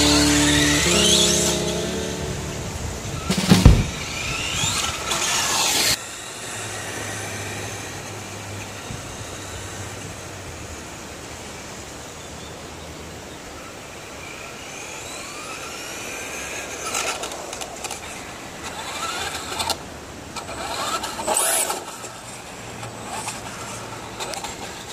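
Radio-controlled Traxxas Slash trucks' electric motors whining in short rising bursts as they speed up, several times over. There is one loud thump about three and a half seconds in.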